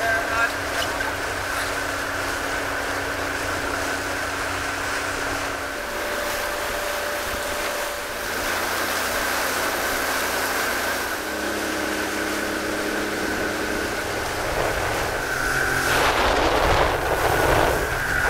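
A boat motor running steadily under water and wind noise. Heavier wind buffeting on the microphone starts near the end.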